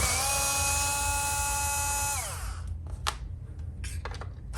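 Power drill/driver backing out a screw from a jukebox control panel: the motor whines up to speed, runs steadily for about two seconds, then winds down and stops. Two sharp clicks follow.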